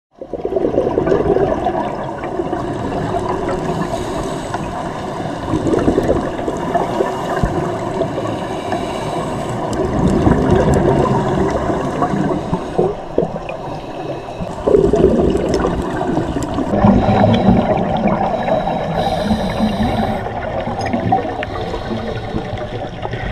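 Underwater sound through a GoPro's housing: gurgling and rumbling of scuba regulator bubbles, swelling in surges every few seconds as divers breathe out.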